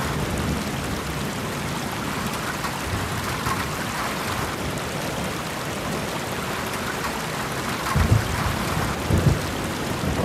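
Steady rain hiss with low rumbles of thunder twice near the end.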